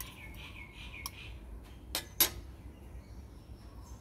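Metal fork clinking against a ceramic dinner plate: three sharp clicks, about one second in and twice more around two seconds in. A quick run of faint bird chirps comes in the first second.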